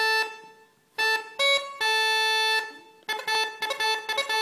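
Uilleann pipes chanter played alone with no drones. A held note stops cleanly and after a brief silence comes an A–C–A triplet ending on a held A. From about three seconds in a fast run of triplet ornaments follows.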